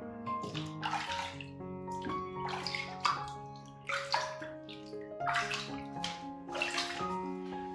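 Water being scooped and splashed by hand over a cat sitting in a plastic tub of water, in repeated splashes about once a second. Soft piano music plays throughout.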